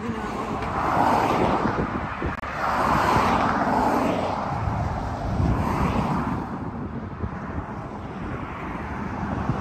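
Road traffic passing close by on a highway, several vehicles in turn, each one's tyre and engine noise swelling and fading.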